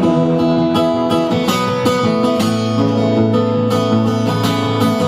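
Acoustic guitar strumming a steady rhythm in an instrumental passage of a trop rock song, with no singing. A low bass note comes in about halfway through.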